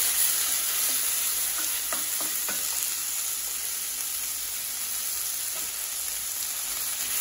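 Sliced onions, tomatoes and green chilli sizzling steadily in groundnut oil in a stainless steel kadai, with a few scrapes of a wooden spatula stirring them in the first half.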